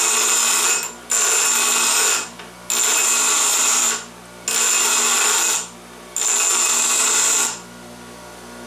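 Bench grinder wheel grinding the end of a 1/2-inch metal pipe nipple, in five separate passes of about a second each with a high squeal, the wheel still running between them. The end is being ground to a 30-degree bevel to sharpen a hole punch. The grinding stops near the end, leaving only the grinder's steady hum.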